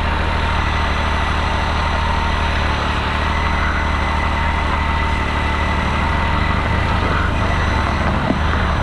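Can-Am Maverick X3 side-by-side's turbocharged three-cylinder engine running at a steady, even pitch, with a constant high whine over a deep drone.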